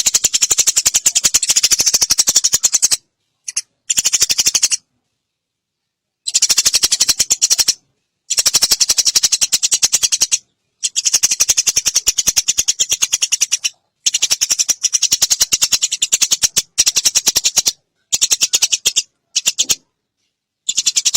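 Eurasian tree sparrow giving its long, rapid chattering rattle (recetan), high-pitched and loud, in bouts of one to three seconds broken by short silent gaps.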